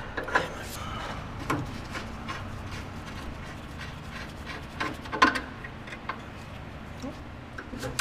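Wrenches clinking on the radiator's transmission cooler line fittings as they are loosened: scattered sharp metallic clicks, the loudest about five seconds in.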